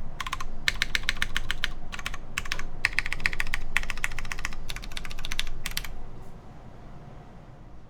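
Typing in quick bursts on a mechanical keyboard with lubed Cherry MX Brown switches, 55 g springs, an FR4 half plate and GMK keycaps. The keystrokes stop about six seconds in and the sound fades out.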